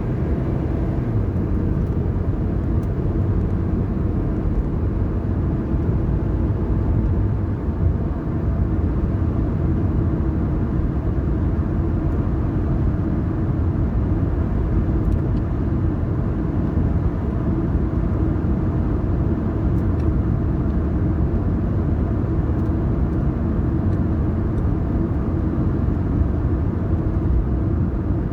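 A car driving along a road: a steady low rumble of engine and tyre noise, with the engine note falling away in the first second.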